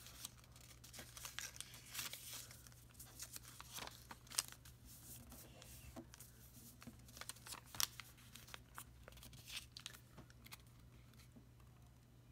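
A sheet of origami paper being folded and creased by hand: faint, irregular crinkling and rustling, with sharp little crackles as the folds are pressed flat.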